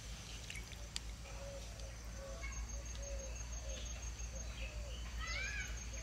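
Birds calling in the background: a string of short, soft chirps and, about five seconds in, a couple of louder rising calls, over a steady low rumble. A couple of faint clicks come near the start.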